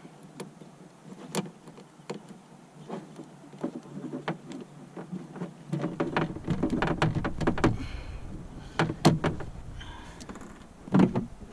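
Plastic push rivets being worked out of a kayak seat bottom: scattered sharp clicks and knocks of plastic, with a low rumble setting in about six seconds in and a heavier knock near the end.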